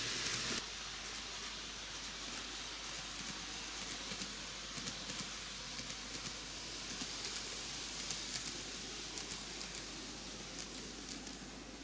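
TOMIX N-gauge Kintetsu 80000 series Hinotori model train running on its track: a steady rolling hiss with light, irregular clicks of the wheels over the rail joints, under a constant low hum.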